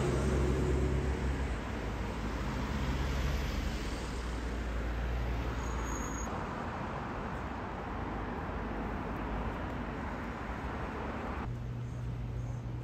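Road traffic noise from passing cars on a city street. Near the end it changes abruptly to a quieter background with a steady low hum.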